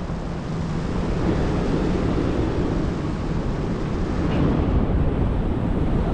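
Wind blowing steadily across the microphone as a dense, low noise that does not change much.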